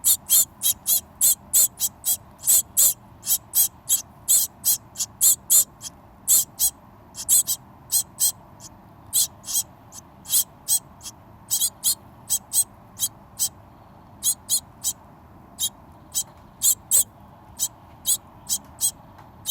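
Hungry birds calling with short, high-pitched chirps, about two or three a second in an irregular run, with a few brief pauses.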